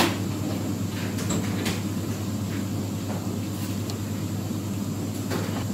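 A steady low hum, with one sharp click at the very start and a few faint ticks after.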